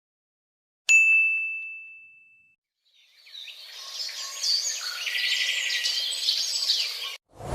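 A single bright ding, ringing out and fading over about a second and a half. Then birds chirping for about four seconds, cutting off suddenly, with a loud whoosh starting just at the end.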